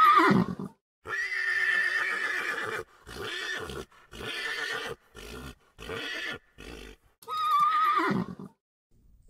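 Horses whinnying: a wavering whinny that falls in pitch at the start and another near the end, with a longer call and a run of short calls between them.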